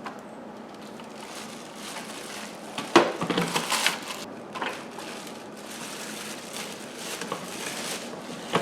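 Plastic packaging and vacuum parts being handled: rustling and crinkling with scattered clicks, and a sharp knock about three seconds in followed by a burst of louder rustling.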